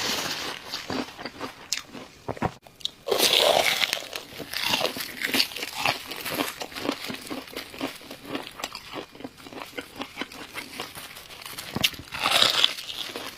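A person chewing and crunching crunchy food close to the microphone, with louder crunching bites about three seconds in and again near the end.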